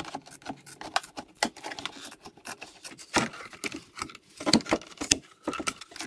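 Aviation tin snips cutting through a black plastic bucket wall: a series of irregular snipping crunches and clicks, several of them louder in the second half.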